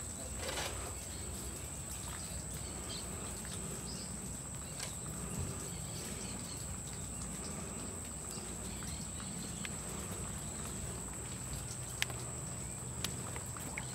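Riverside outdoor ambience: a steady high-pitched insect drone over a low rumble, with a couple of faint clicks near the end.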